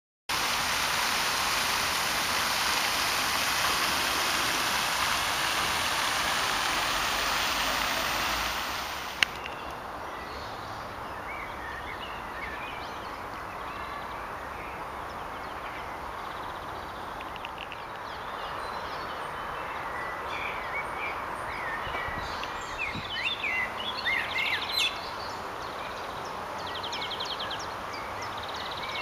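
A steady, loud rushing noise for about nine seconds, which cuts off with a click. After it comes quieter open-air background with songbirds chirping and trilling, busier near the end.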